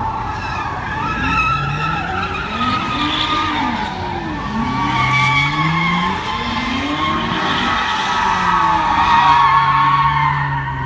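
Muscle car doing a burnout or donuts: the tires squeal continuously while the engine's revs rise and fall over and over.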